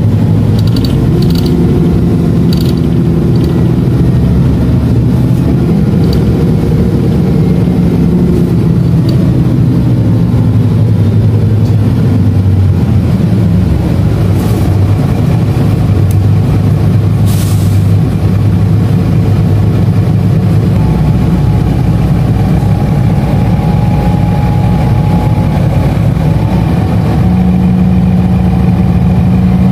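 A motor vehicle's engine running steadily, its drone shifting slowly up and down in pitch, with a few short clicks in the first few seconds and two brief hisses about halfway through.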